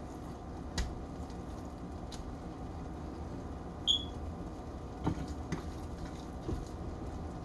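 Light kitchen handling noises while seasoning food: a few soft clicks and knocks, and a brief high squeak about four seconds in, over a steady low background hum.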